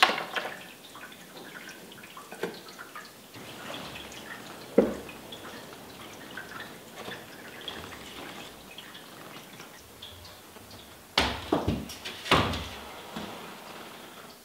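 Scattered knocks and clunks of a vase and window being handled at a window sill: a single knock every couple of seconds early on, then a louder cluster of several knocks about eleven seconds in.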